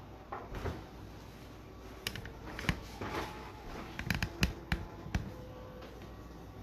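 Light rustling and a scattering of short clicks and taps from hands handling things on a kitchen counter, as disposable plastic food-prep gloves are fetched to be put on.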